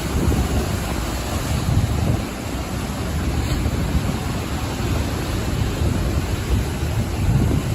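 Ocean waves washing onto the shore in a steady, continuous rush of surf, with wind rumbling on the microphone.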